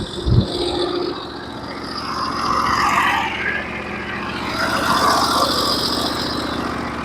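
Norwood HD36v2 portable sawmill's gas engine running steadily, with a single thump just after the start and two broad swells in the sound partway through.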